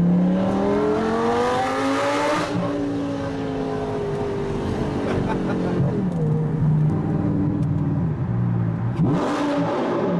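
Lamborghini engine heard from inside the cabin, revving up under acceleration with a rising pitch. The pitch drops at a gear change about two and a half seconds in, then falls and climbs again with more gear changes near the end.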